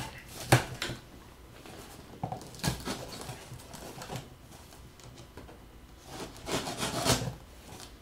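A cardboard parcel being handled on a wooden table: a few knocks and scrapes as it is pulled into place and turned, with a cluster of rubbing and scraping near the end.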